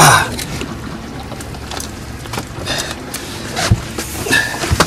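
Running noise aboard a small fishing boat: an engine's steady hum with wind and water, and a few knocks on deck.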